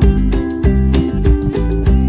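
Music: a strummed guitar with a bass line, keeping a steady, even rhythm.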